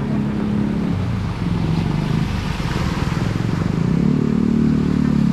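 A small engine running close by, a steady low rumble that grows louder about four seconds in.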